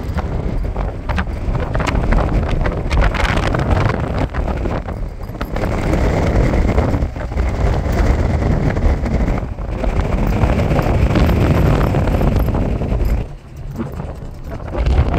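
Wind buffeting the phone's microphone over road noise from a moving car, a rough rushing that dips briefly a few times, most deeply near the end.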